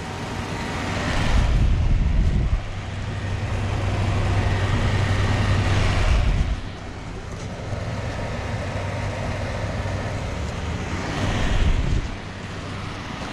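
1982 Carrier Round One outdoor air-conditioning units running: a steady low hum from the compressors under the rushing of the condenser fans. The sound swells louder and eases back a few times.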